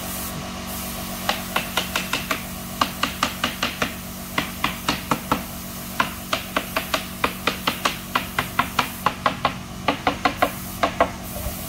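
Rapid, repeated knocking on the ABS plastic mold panel of a concrete planter, struck about three to four times a second to loosen it from the freshly cast concrete. The knocks start about a second in and stop shortly before the end.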